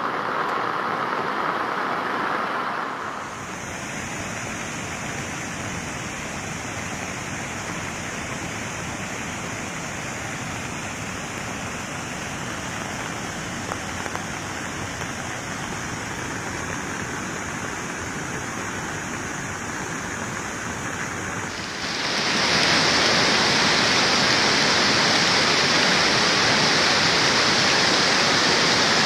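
Steady rush of water from rain and flooding, with no tune or rhythm in it. It changes suddenly about three seconds in, then grows louder and harsher about 22 seconds in.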